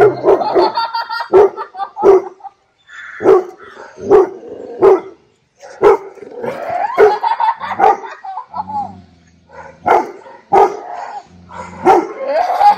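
Labrador retriever giving alarm barks: sharp barks about once a second with short pauses, at a strange masked figure it takes for a threat.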